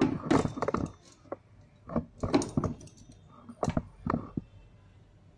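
Mixer-grinder jar and its plastic lid being handled on a kitchen counter: a series of short clicks, knocks and rattles in a few quick clusters, with no motor running.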